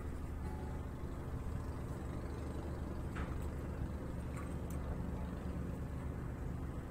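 Steady low engine drone from the barge's onboard machinery, even in level throughout. Two faint short chirps come about three seconds in and again about a second later.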